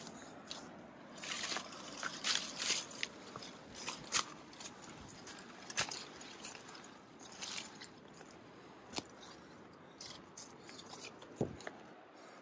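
Footsteps crunching irregularly on a trail, with sharp scuffs and clicks over a steady background hiss.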